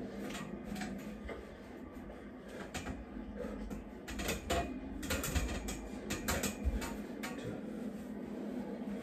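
Scattered light clicks and taps, several a second and bunched between about four and seven seconds in, from a free-standing steel dip bar station shifting and knocking under a man's weight as he does dips, over a low steady hum.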